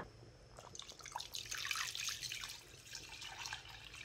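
Water being poured into a handi of beef trotter (paya) broth, splashing and trickling into the liquid. It is heaviest in the first half and then tapers off. The pot is being topped up with water for a long overnight simmer.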